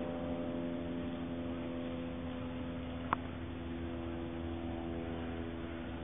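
A steady mechanical hum made of several unchanging tones, with a single sharp click about three seconds in.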